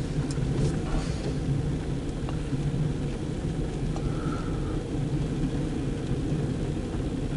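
Steady low rumble and hum heard from inside a car in the rain, with a few faint ticks.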